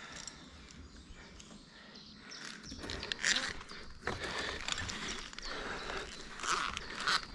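A climber ascending a rope with a frog system: hard, loud breathing in bursts, with short clicks and knocks from the chest and hand ascenders and gear on the rope, getting louder from about three seconds in.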